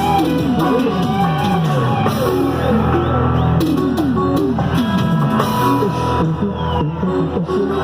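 Cuarteto band music played live: a steady beat on drums with guitar and quick sliding runs in the bass and melody.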